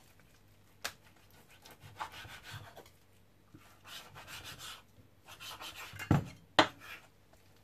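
Kitchen knife slicing and trimming raw beef shank on a wooden cutting board, cutting away the tendon: soft scraping, rubbing strokes with a few sharp knocks on the board, the loudest two close together near the end.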